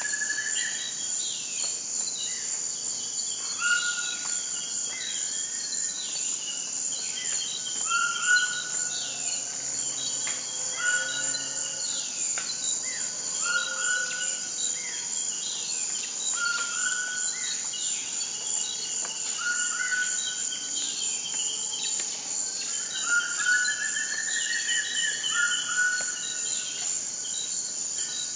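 Steady high-pitched insect chorus, like crickets, with birds singing short repeated phrases over it every second or two.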